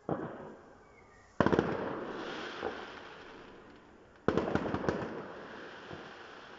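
Aerial firework shells bursting. There is one bang at the start, then two louder bangs about a second and a half in and just past four seconds in. Each of the louder bangs is followed by a crackle that fades over the next couple of seconds.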